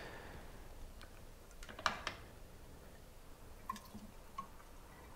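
Quiet handling sounds while bottling makgeolli: a liquid pour trails off at the start, then there is a sharp click about two seconds in and two light knocks, each with a brief ring, near the end.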